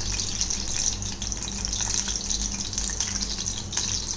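Besan-battered tomato slice deep-frying in hot oil in a kadai: a steady sizzle with many small crackles.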